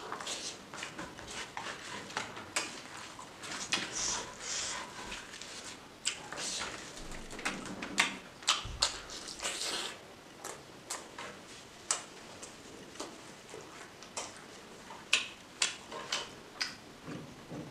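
Close-miked eating sounds: a person chewing pork curry and rice with wet mouth smacks and sharp clicks, a few a second and irregular, with short soft hissy rustles between them.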